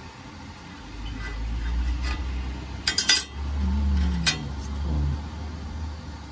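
Steel clinking as a flat steel strip and a small hand tool are handled against rusty steel box-section on a workbench: a quick cluster of clinks about three seconds in and a single clink a second later. Under it runs a low rumble, most likely wind on the microphone.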